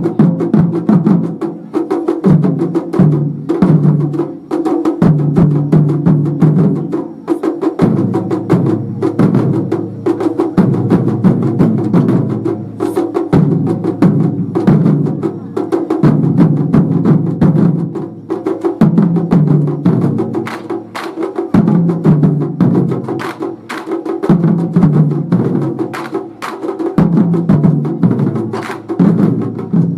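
Wadaiko (Japanese taiko) ensemble drumming: rapid, dense strokes, sharp clicking hits mixed with deep drum tones, in a driving rhythm.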